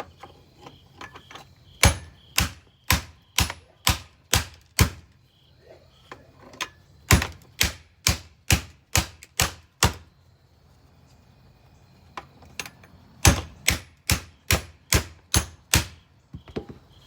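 Repeated hard blows beating on a bagged vacuum cleaner's housing, about two strikes a second, in three runs of six to eight blows each with short pauses between.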